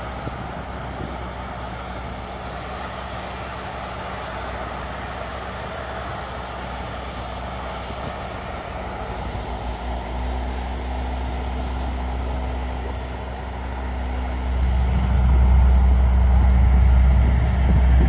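Diesel engines of heavy road-paving machinery and trucks running steadily at a distance. A deep low rumble builds partway through and is loudest over the last three seconds or so.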